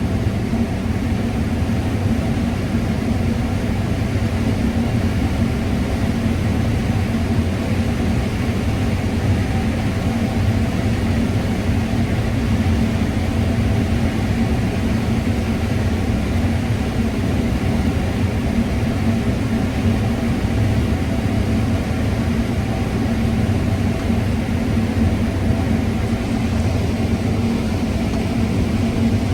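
Combine harvester running steadily while cutting corn: a constant low drone of engine and threshing machinery that does not change in pitch or level.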